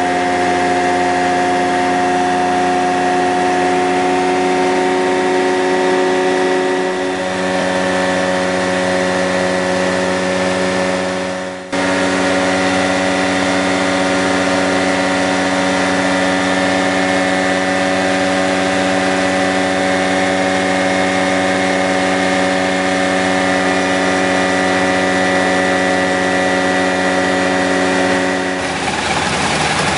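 Rans Coyote ultralight's engine and propeller droning steadily in cruise, heard from inside the cockpit. The sound breaks off briefly about twelve seconds in, and near the end the even tone gives way to a rougher, noisier sound.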